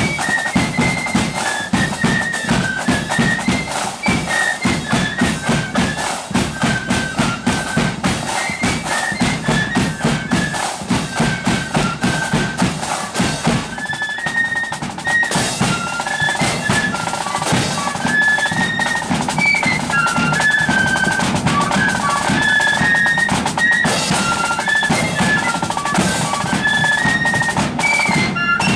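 Marching flute band playing a tune on transverse flutes, with drums beating out the march underneath. The drumming grows denser and steadier about halfway through.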